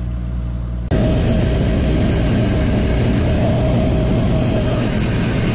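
Bobcat MT100 mini track loader's engine running, heard from the operator's position. It is loud and steady, with a constant whine on top, and cuts in abruptly about a second in after a steadier low hum.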